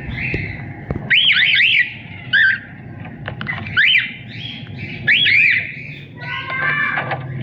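Cockatiel singing: several loud phrases of rising-and-falling whistles with short chirps between them, over a steady low hum.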